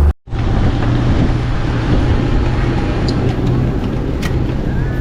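A motor vehicle's engine running steadily as it travels, a low drone under a constant rushing noise.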